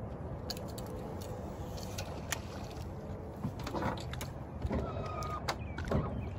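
Baitcasting reel cranked and rod handled while a glide bait is retrieved, with light clicks and handling rustles over a steady low rumble.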